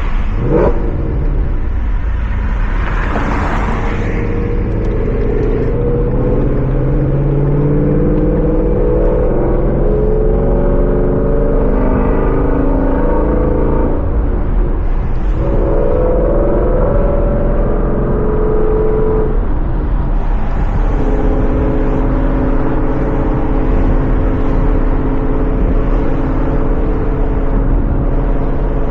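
2017 Mustang GT's Coyote 5.0 V8 through a Corsa Xtreme cat-back exhaust while driving. There is a quick rev near the start, then the note climbs for about ten seconds, drops at a gear change, and climbs again. About two-thirds of the way through it settles into a steady cruising drone.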